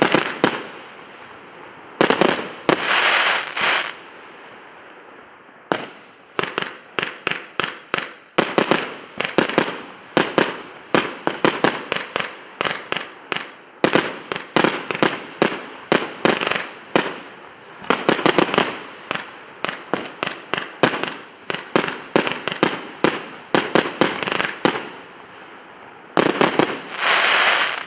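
Emperor Fireworks 'Maximum Impact' firework going off: a long series of sharp bangs, with short pauses early on and dense stretches of rapid popping about two seconds in, around the middle and just before the end.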